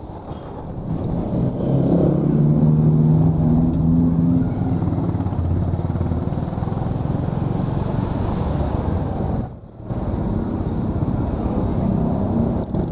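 Motorcycle engine running while under way, over a steady rush of road and wind noise; the engine note is strongest a few seconds in.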